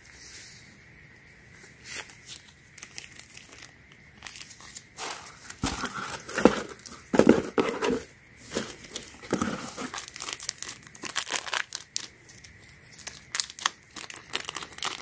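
White tissue-paper wrapping and a clear plastic jewellery bag crinkling and rustling as they are unfolded and handled, in irregular bursts that are busiest in the middle.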